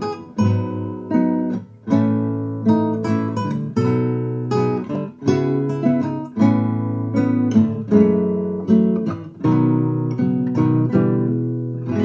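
Nylon-string classical guitar playing a short piece: plucked single notes and chords in a flowing phrase, ending near the end on a chord left to ring out and fade. This is the raw recording as it stands before any mixing.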